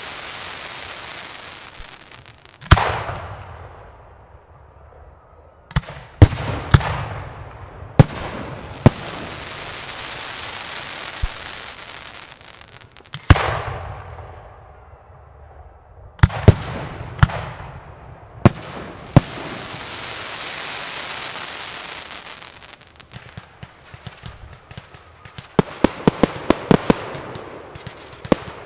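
Aerial firework shells bursting: single loud bangs every second or two, the biggest followed by a rolling tail, with long stretches of hissing from the falling effects in between. Near the end comes a quick run of rapid bangs.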